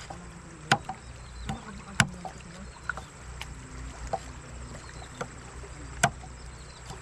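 A large knife chopping and knocking on a wooden cutting board while cutting the fins off cleaned tilapia. There are about seven sharp, irregular knocks, the loudest near the end, over a low steady rumble.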